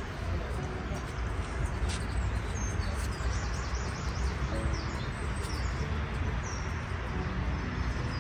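Steady outdoor background rush with a few short, high bird chirps in the middle.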